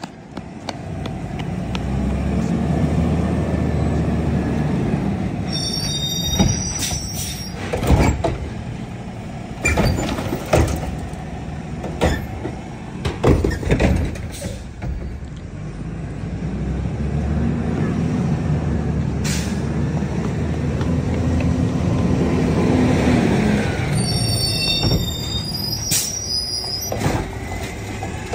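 Automated side-loader garbage truck working at the curb: its engine revs up and settles twice as the hydraulic arm lifts and dumps carts, with a run of bangs and knocks in the middle as carts are shaken out into the hopper. There are brief high squeals twice.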